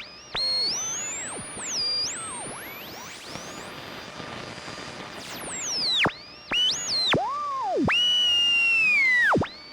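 Radio being tuned across the dial: whistling tones glide up and down and swoop sharply over a bed of static hiss. Near the end one whistle holds fairly steady, then sinks and dives away.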